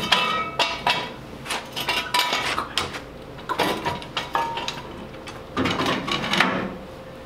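Steel front axle assembly with its reverse-eye leaf spring clanking, clinking and scraping as it is lifted and worked into place under a car frame. Some of the clanks ring briefly.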